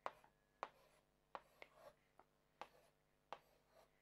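Faint, short scratches and taps of a marker pen writing letters on a whiteboard, about seven strokes spread irregularly over a few seconds.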